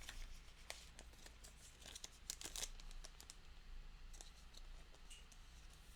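Faint crinkling and rustling of a trading card being handled and slipped into a plastic sleeve, a scatter of small crackles that is busiest in the first three seconds and thins out after.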